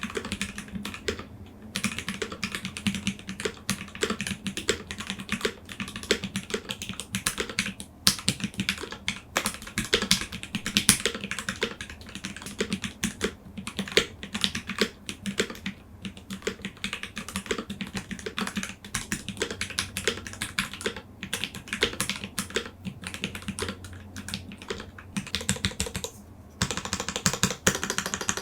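Typing on a Blade65 aluminium 65% custom mechanical keyboard with lubed Gateron Ink Black linear switches, a brass plate and GMK double-shot ABS keycaps. It is a steady stream of fast keystroke clacks, broken by a few short pauses.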